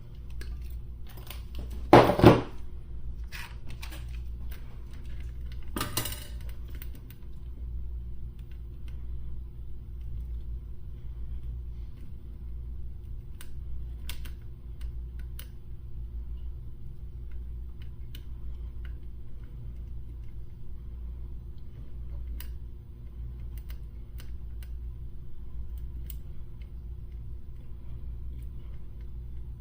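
Small metal tools clicking and tapping at a circuit board while old solder is cleared from a potentiometer's pins, over a steady low hum. A sharp double knock comes about two seconds in, a lighter one around six seconds, then scattered faint clicks.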